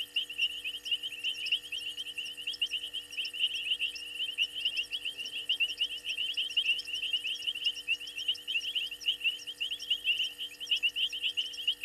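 Dense night chorus of frogs and insects: many short, high chirps overlapping rapidly and without a break.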